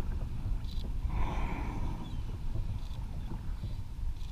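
Wind buffeting the microphone and choppy water slapping against a sea kayak's hull, with a brief rush of water about a second in.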